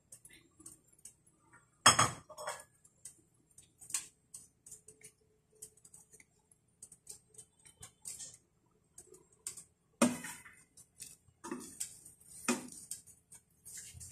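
A sandwich toasting in a ceramic-coated frying pan, crackling with scattered small pops. A few louder knocks of a wooden spatula on the pan and the sandwich come about 2 seconds in and then three times in the last few seconds.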